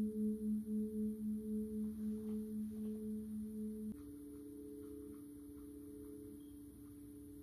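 NOW Tone Therapy System sounding pure, bowl-like electronic tones: a low tone with a higher one above it beats at about four pulses a second and slowly fades. About four seconds in, it switches abruptly to a quieter, steady pair of different tones.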